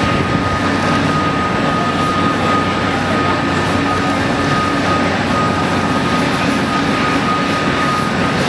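Steady airport ramp noise around a Boeing 747-8 Intercontinental under tow: a constant high turbine-like whine over an even rumble.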